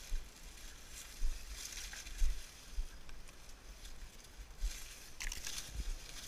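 Dry maize stalks and leaves rustling and scraping against the camera as someone pushes through a standing cornfield, in irregular hissy bursts, with low bumps on the microphone.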